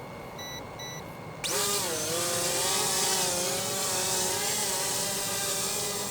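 Electric motors and propellers of an XK X450 VTOL RC plane spinning up about a second and a half in for a vertical take-off in multi-rotor mode, then running at a steady, high whine. Before it, two short electronic beeps.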